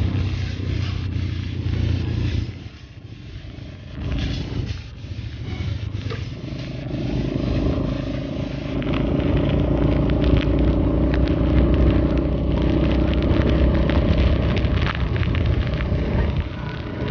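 Car driving on a wet road, heard from inside the cabin: a steady rumble of engine and tyres on wet tarmac, with a patter of rain on the car. It drops briefly about two to four seconds in, then grows into a louder steady hum through the second half.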